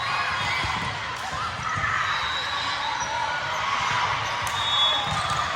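Volleyballs bouncing with dull thuds on a hard gym floor, scattered irregularly, over the continuous chatter of many voices in a large hall.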